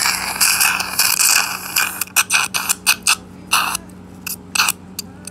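Surgical suction tip slurping in an upper molar extraction socket, a steady hiss broken by irregular gulping pulses as it draws up blood and discharge through an oro-antral fistula into the sinus.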